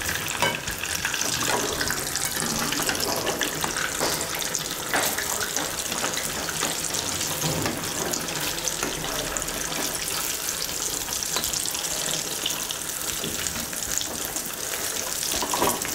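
Batter-coated purnam burelu deep-frying in hot oil in a kadai: a steady bubbling sizzle, with a few sharp clicks of a metal slotted spoon as the balls are turned over.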